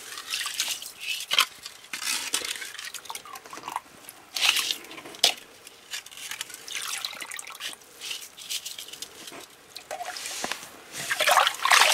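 Plastic ice skimmer scooping slush and ice shavings out of an ice-fishing hole: water sloshing and dripping through the slotted scoop, with ice crystals scraping against its edge, in irregular strokes.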